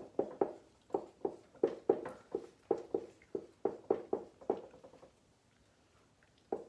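Dry-erase marker writing on a whiteboard: a quick run of short, squeaky strokes. They stop about five seconds in, and one more stroke comes right at the end.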